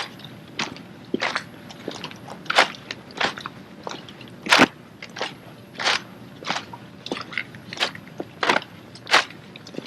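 Rifle drill team working through a sequence: a string of sharp slaps and knocks from hands and rifles, irregularly spaced at roughly one or two a second, the loudest about four and a half seconds in and again near the end.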